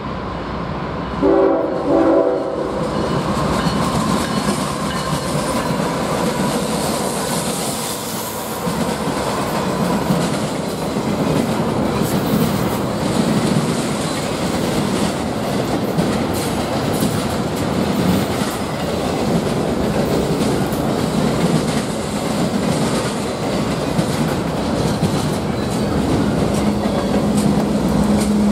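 CSX freight train passing close: the lead diesel locomotive's horn sounds two short blasts about a second in. Then comes the steady run of wheels over the rails, clicking at the rail joints as double-stack intermodal cars go by. Near the end a steady low engine hum comes in as more locomotives in the train pass close.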